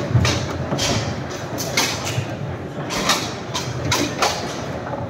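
Foosball in play: irregular sharp clacks as the ball is struck by the player figures and the rods knock, several a second in places, over a steady background murmur of hall chatter.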